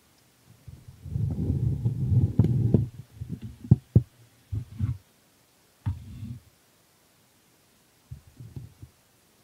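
Low rumbling handling noise from the camera being moved about, in several bursts, with two sharp knocks about four seconds in as the frying pan is set down on the electric hot plate.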